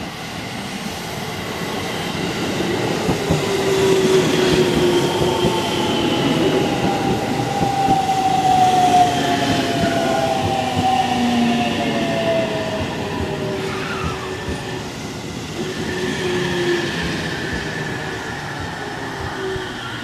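Orange-striped electric commuter train running into the platform, with wheel-on-rail rumble and a motor whine that slowly falls in pitch as the train slows. It is loudest a few seconds in as the cars come alongside, then eases off.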